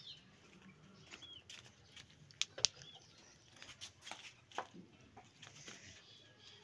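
Chickens clucking and chirping faintly, with scattered light knocks and two sharp clicks about two and a half seconds in, as water pots are handled and set into the coops.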